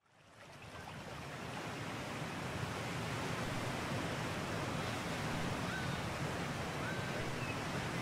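Sea surf washing steadily on a shore, fading in over the first couple of seconds, with a few faint high chirps in the second half.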